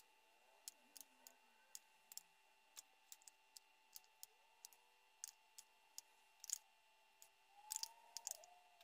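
Near silence with faint, irregular light clicks and taps, a little denser and louder near the end.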